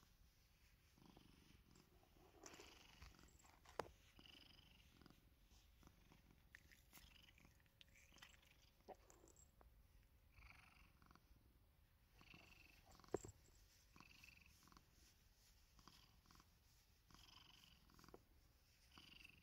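Domestic cat purring faintly and steadily while being scratched under the chin, with two sharp clicks, one a few seconds in and one past the middle.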